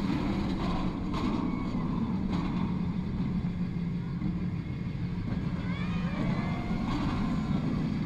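Bolliger & Mabillard inverted roller coaster train running at speed through its course, heard from a seat on the train: a steady roar of wheels on the steel track and rushing air.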